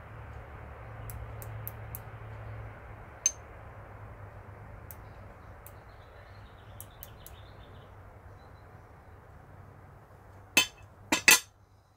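A steady low machine hum with shop noise, easing off slightly. Scattered light metallic clinks run through it, then a few sharper metal knocks near the end as a tool is handled.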